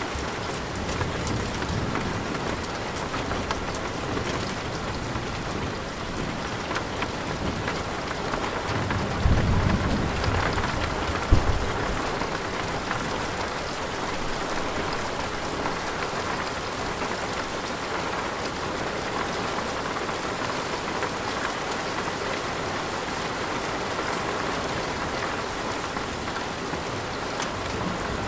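Steady heavy rain with rolling thunder; a low rumble swells about a third of the way in and ends in a sharp crack.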